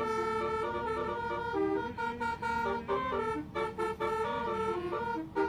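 Basuri multi-tone telolet horn playing a tune of quick, stepping notes, heard from inside the cab.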